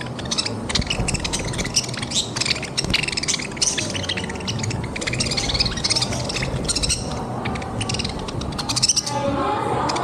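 Flock of budgerigars chattering: many quick high chirps and warbles in rapid succession, dying down near the end.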